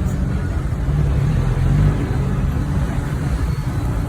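Steady low rumble of a road vehicle's engine and running noise, even throughout with no sudden events.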